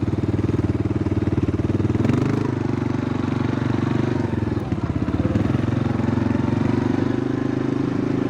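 ATV engine running steadily, its pitch stepping up about two seconds in and dipping briefly a little past the middle.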